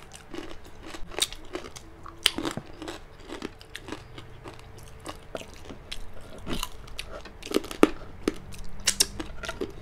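Crunching and chewing of crispy fried pork crackling (chicharon bagnet), a stream of irregular crisp crackles with a few sharper crunches.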